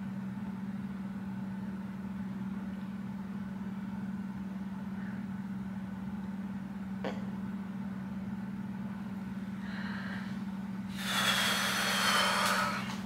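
A steady low hum, with a single sharp click about seven seconds in and a louder rush of breathy noise for a couple of seconds near the end.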